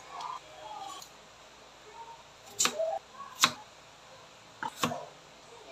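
Chef's knife cutting a peeled potato on a wooden cutting board: about four sharp, irregularly spaced knocks of the blade meeting the board, with light handling noises before them.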